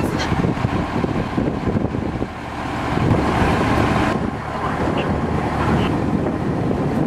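Wind buffeting the microphone outdoors: a steady, loud low rumble and rush. Its higher hiss drops away abruptly about four seconds in.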